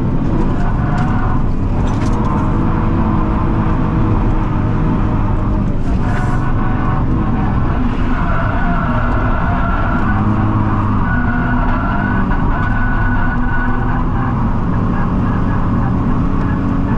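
Car engine running hard during high-speed drifting, its pitch rising and falling as the revs change.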